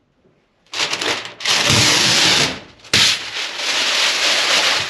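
Old glued-down floor covering being ripped and scraped up: a harsh tearing noise in long pulls, starting under a second in, breaking off briefly, then starting again suddenly about three seconds in.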